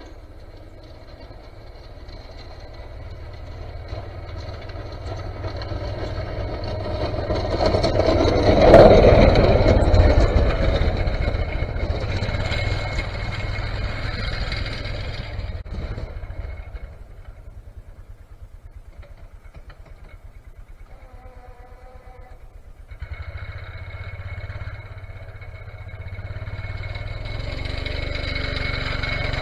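Snowplow vehicle's engine running as it passes the microphone, swelling to its loudest about nine seconds in, fading away, then approaching again near the end on its next pass while plowing.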